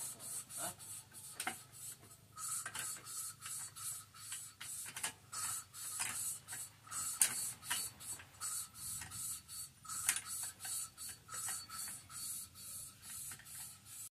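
Ratchet wrench clicking in quick runs of strokes with brief pauses, a few clicks a second, as it tightens the bolts of a scooter's exhaust muffler.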